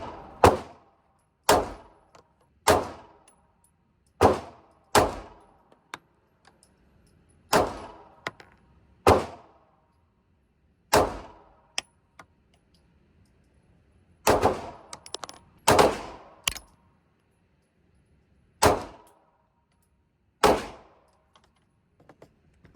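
Glock 43x 9mm pistol fired in slow single shots, about a dozen, spaced irregularly one to two and a half seconds apart, each a sharp crack with a short ringing tail.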